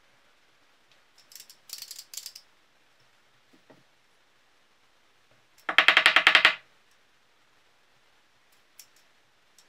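Handmade walnut baby rattle being shaken, its loose maple and walnut rattle pieces clacking against the wooden frame: a short clatter about a second in, then a loud, fast rattle for just under a second in the middle, and a couple of faint clicks near the end.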